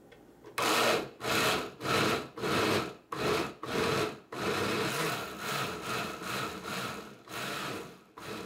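Countertop blender with a glass jar chopping tomato juice and chunky vegetables: it runs in short pulses about twice a second, then runs steadily for about four seconds as the mix turns smooth, and cuts off near the end.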